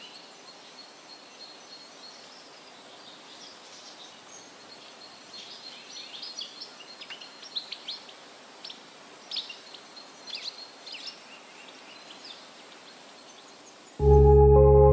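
Outdoor ambience of steady hiss with birds chirping, the chirps busiest in the middle. Near the end, loud ambient music with long held low tones cuts in suddenly.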